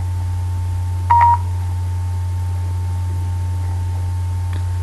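A short electronic beep from the Android phone's voice-command app about a second in, as it finishes listening to a spoken command, over a steady low hum.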